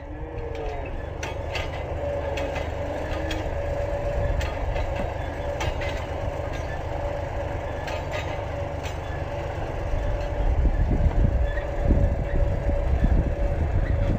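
Compact farm tractor running steadily as it tows a trailer, with a constant whine over its engine. A low rumble grows louder about ten seconds in, and a few sharp clicks are heard along the way.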